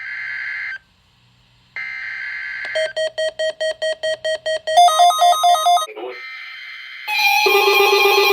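Emergency alert broadcast tones: two short buzzy data bursts of the kind that make up an EAS SAME header, then a run of electronic beeps at about four a second that jumps higher in pitch near the middle. About seven seconds in, a loud steady alert tone begins.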